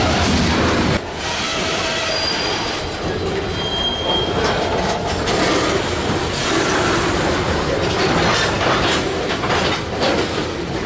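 Freight cars (covered hoppers and tank cars) rolling past at close range, wheels clacking over the rail joints, with two brief high wheel squeals. The deep rumble drops away about a second in.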